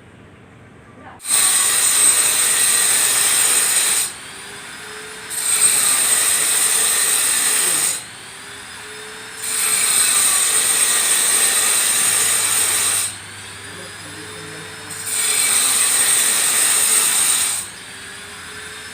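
Hand grinder with a tile-cutting disc cutting ceramic tile in four loud, harsh cuts of a few seconds each. Between cuts the grinder runs free, more quietly, its whine climbing back up in pitch as the disc speeds up again.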